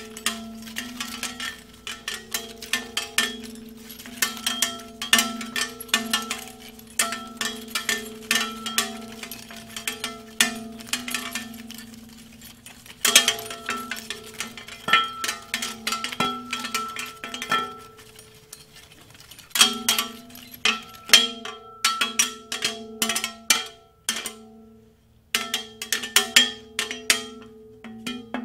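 Struck metal objects clanging in fast, irregular strikes, each leaving a ringing bell-like tone that hangs between hits. There is a brief gap of about a second near the end.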